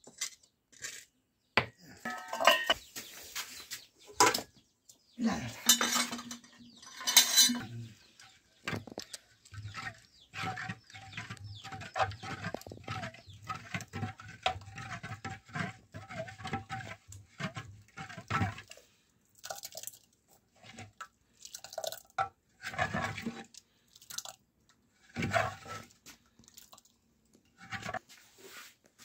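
Metal pots, dishes and utensils being handled, with scattered clinks and knocks; a steadier low hum runs under them through the middle stretch.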